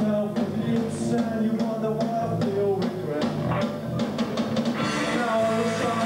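Rock band playing live, with drums and electric guitar; the sound grows fuller and brighter about five seconds in.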